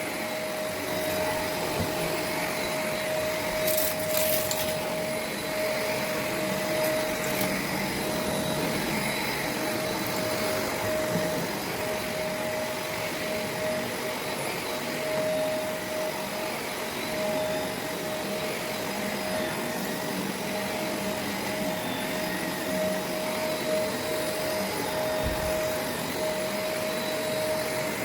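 Shark Navigator NV501 upright vacuum running steadily while vacuuming carpet: an airy rush with a steady whine, and a few brief clicks about four seconds in.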